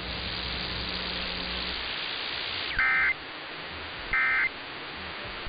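Emergency Alert System end-of-message data bursts: two short, loud digital tone bursts about a second and a half apart, with a third starting at the very end. They follow a couple of seconds of steady broadcast hiss, and they mark the close of the test message.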